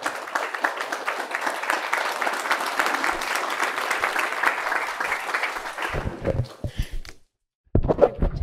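Audience applauding, dense even clapping that thins out about six seconds in. Near the end come a few loud, close thumps and rustles right at the microphone.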